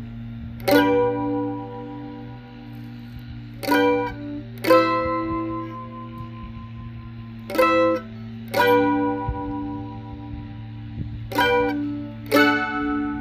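Mandolin tune played slowly: about seven separate strummed chords, each ringing out for a second or so before the next, over a steady low hum.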